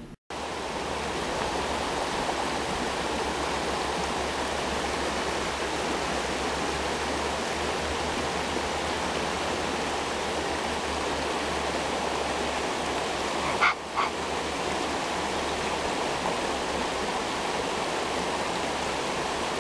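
Shallow rocky creek running over stones, a steady rushing of water. About two-thirds of the way through, a short high squeak cuts in briefly.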